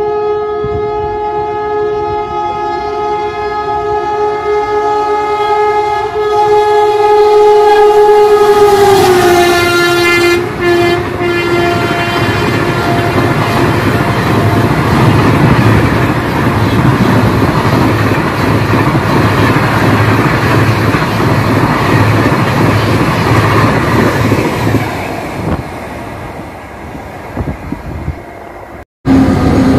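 Locomotive horn of the New Delhi Rajdhani Express sounding one long, steady blast as the train approaches at speed, its pitch dropping about nine seconds in as the engine passes. Then comes the loud rush and rhythmic wheel clatter of the LHB coaches running through fast, fading near the end before a sudden cut.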